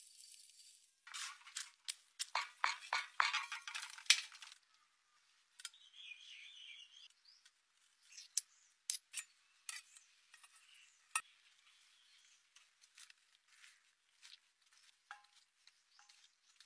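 Metal slotted spoon clinking and scraping against a steel karahi. There is a quick run of sharp clinks in the first few seconds, then scattered clinks.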